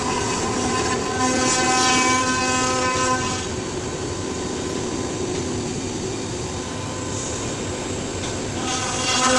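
5-axis CNC machine running a cut, a steady pitched whine with cutting noise. The whine is strong from about a second in to about three and a half seconds, drops to a quieter run, and comes back strongly near the end.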